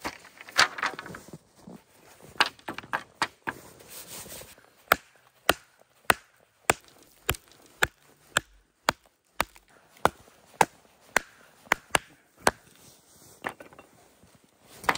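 Small hatchet striking into a peeled wooden stick to split it for kindling. A string of sharp wooden knocks, ragged at first, then steady at about one every half second, stopping a couple of seconds before the end.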